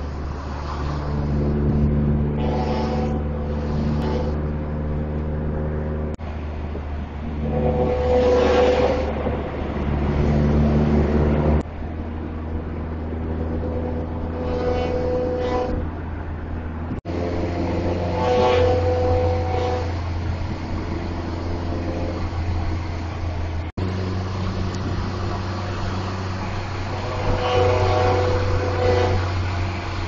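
Multi-tone air horns on a bus blaring in long, repeated blasts of several pitches over a steady rumble of road and engine noise. The sound breaks off abruptly a few times.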